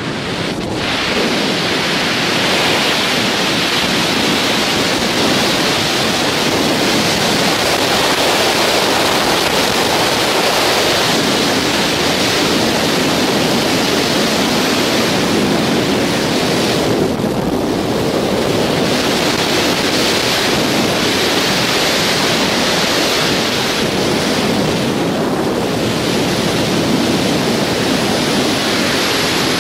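Freefall wind rushing over the skydiver's camera microphone: a loud, steady rushing noise that briefly thins twice as the airflow changes.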